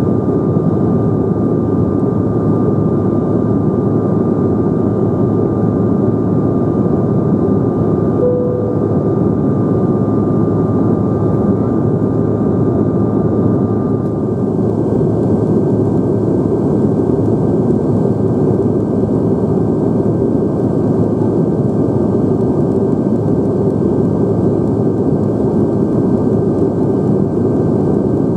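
Cabin noise of a Bombardier CRJ900 in flight: the steady, even rush of its rear-mounted General Electric CF34 turbofans and the airflow, with a thin steady whine over it. About halfway through, the whine shifts to a higher pitch.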